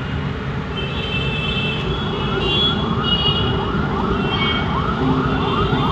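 Emergency vehicle siren in a fast yelp, rapid rising sweeps repeating a couple of times a second and growing stronger from about two seconds in, over the rumble of jammed traffic with short car horn beeps.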